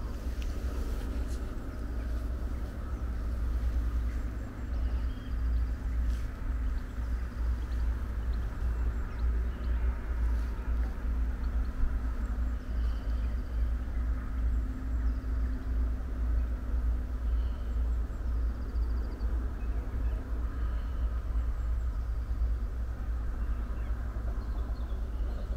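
A steady low rumble with a faint even hum, and small birds chirping faintly now and then above it.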